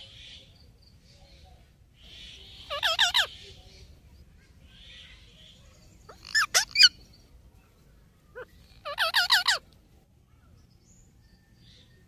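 Indian ringneck (rose-ringed) parakeets calling: three short bursts of quick, shrill, repeated notes, a few seconds apart.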